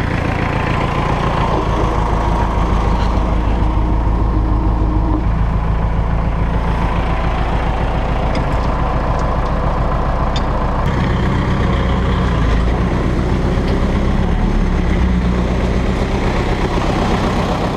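Diesel engine of a small cab-over crane truck running as the truck drives, heard from its load bed, a steady low throb with road noise. The engine note shifts about eleven seconds in.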